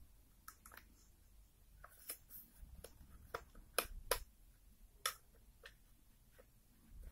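Light, irregular clicks and taps from a power bank's case being handled and turned over in the hands, loudest about four seconds in.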